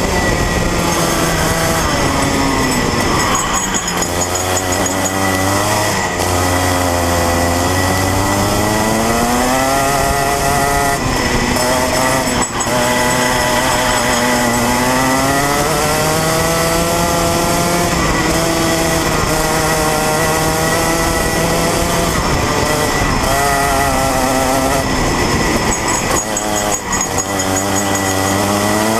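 Rotax Max 125cc single-cylinder two-stroke kart engine (Minimax class) at racing speed. It revs up steadily along each straight and drops sharply when the driver lifts for the corners, several times over.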